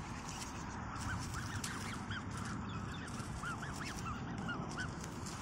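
Black swan cygnets calling while they feed: a quick series of short, high peeps, each rising and falling in pitch, starting about a second in.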